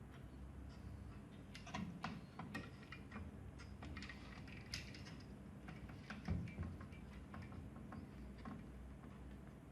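Scattered light clicks and taps of small hand tools and parts being handled on a workbench, with one louder knock about six seconds in, over a steady low hum.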